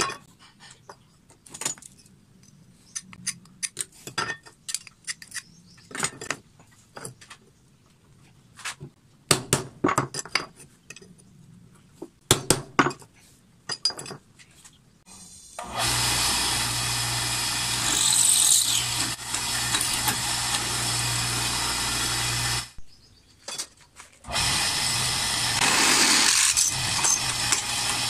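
Metal pieces clicking and clacking as they are handled on a wooden workbench. Then, about halfway through, a benchtop drill press motor starts and runs steadily with a low hum, drilling into a metal strip. It stops for a second or so and starts again near the end.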